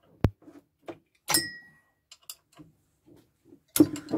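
Scattered metallic clicks and clanks as a spanner turns the camshaft of a Rover K-series twin-cam cylinder head, the cam lobes pushing down on the valves. One knock about a second in rings briefly, and the loudest cluster of clicks comes near the end.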